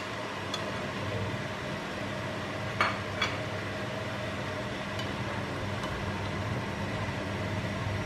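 Vegetables cooking in a frying pan with a quiet sizzle over a steady low hum, as carrots are added and stirred with a spatula. Two sharp knocks of the spatula come about three seconds in.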